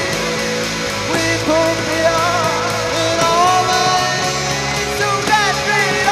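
A band playing a rock song live, with electric guitar and a voice singing over it.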